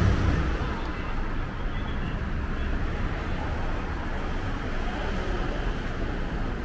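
City street ambience: a steady rumble of road traffic with faint voices in the background.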